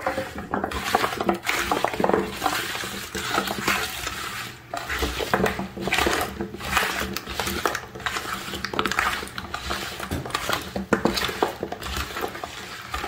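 Sliced carrot coins coated in oil and soy sauce being tossed and mixed by hand in a dish. The pieces make a steady, irregular clatter of small clicks and knocks against the dish and each other.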